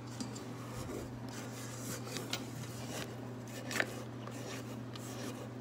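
Stand mixer running with a steady low hum, with light scraping and a few soft clinks against its stainless steel bowl as the cake batter is worked.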